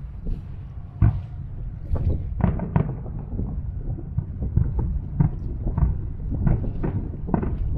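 Distant aerial fireworks shells bursting, an irregular string of booms and cracks at roughly two a second.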